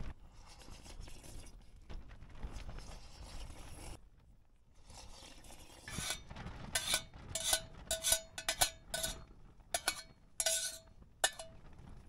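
Metal chopsticks scraping and knocking against a stainless-steel lunch tin as rice is pushed out into a bowl. Starting about halfway in, there is a quick run of roughly a dozen clinks, each with a short metallic ring, ending shortly before the end.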